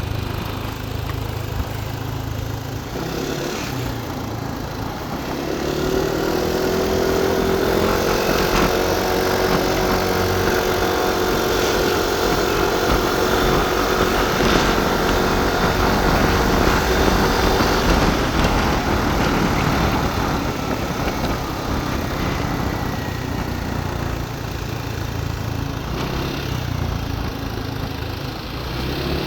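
Motorbike engine running while riding, with wind rumbling on the microphone. The engine note picks up about five seconds in, holds steady, then eases off after about twenty seconds.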